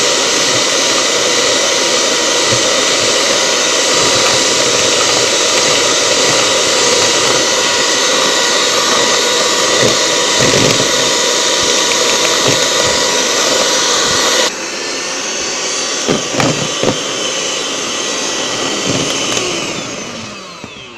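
Electric hand mixer running steadily at speed, its beaters whisking egg yolks and sugar until they thicken and grow in volume. About two-thirds through, the sound drops suddenly to a quieter level, and near the end the motor whine falls in pitch as it slows.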